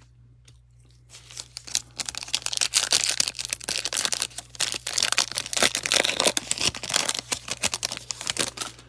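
A trading-card pack's plastic wrapper being torn open and crinkled, a dense crackling that starts about two seconds in and runs until just before the end.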